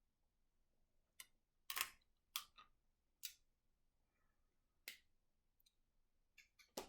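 Faint, scattered short clicks and smacks of someone eating seafood close to the microphone, about seven over several seconds with quiet between them.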